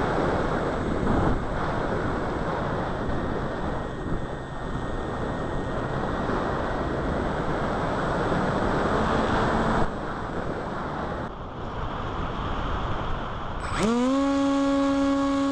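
Wind rushing over a small camera microphone as a loud, steady rumbling hiss, with brief changes around two-thirds of the way through. Near the end, a steady hum with many overtones starts suddenly, with a quick rise in pitch before it holds.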